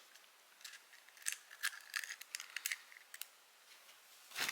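Light clicks and taps of food packaging being opened and handled, scattered over about three seconds.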